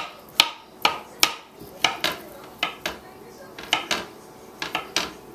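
Butter knife slicing banana and tapping down onto a cutting board: about a dozen sharp knocks, irregular, roughly two a second.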